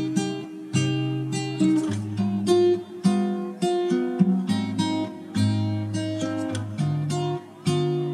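Background music: an acoustic guitar playing plucked, strummed notes in a steady pattern.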